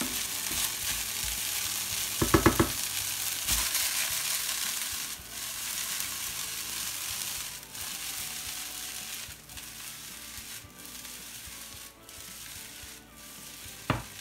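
Chicken fried rice sizzling in a nonstick frying pan as it is stirred with a wooden spatula and the pan is shaken, the rice being left to roast in the pan. A short ringing clatter about two seconds in, and the sizzle eases off in the second half, with a single sharp knock near the end.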